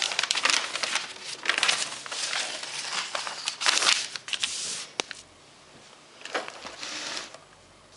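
Large paper plan sheets rustling and crinkling as they are lifted out of a cardboard box and unfolded, with one sharp click about five seconds in. After that it goes quieter, with a brief rustle of paper near the end.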